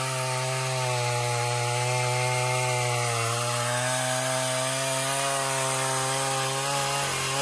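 A chainsaw's small two-stroke engine running at a steady speed, one even engine note that barely changes.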